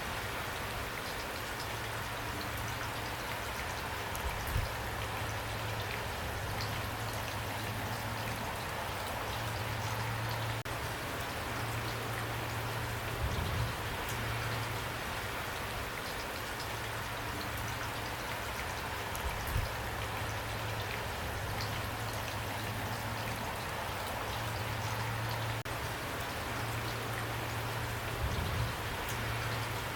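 Steady rain falling, with individual drops ticking and a few louder drops standing out now and then.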